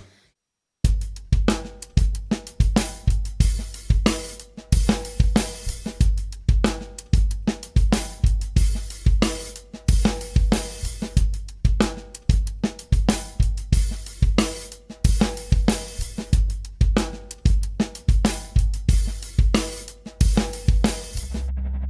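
Drum kit loop playing a steady beat of kick, snare, hi-hat and cymbals, starting just under a second in after a brief gap and stopping abruptly near the end.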